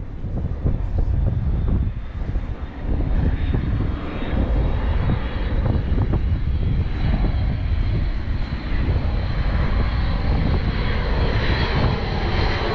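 Airplane flying over, a steady engine drone that grows stronger toward the end.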